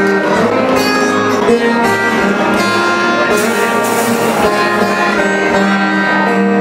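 Ensemble of nylon-string acoustic guitars with a bass guitar playing a tune, notes plucked and strummed at a steady level.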